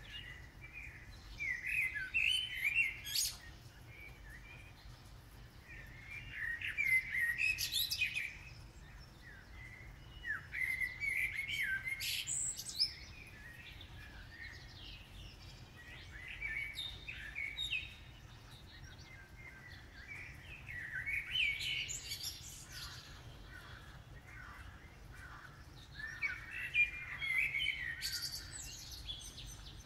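Common blackbird singing: about six warbling song phrases of two to three seconds each, separated by pauses of a few seconds, many ending in a high, squeaky twitter.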